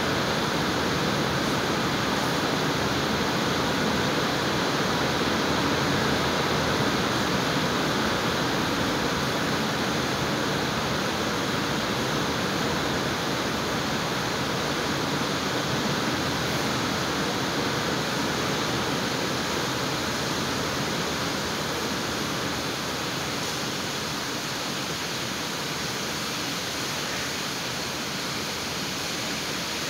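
Heavy rain pouring down in a steady, dense hiss, getting slightly softer near the end.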